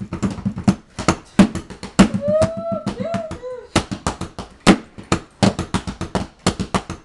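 Drum kit being played: fast, uneven strokes on drums and cymbals, with a gap in the hits just before one second in. Between about two and three and a half seconds in, a short wavering call rises and falls over the drumming.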